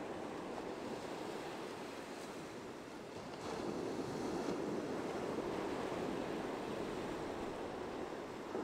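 Ocean surf washing onto a beach: a steady rush of breaking waves that swells louder about three and a half seconds in.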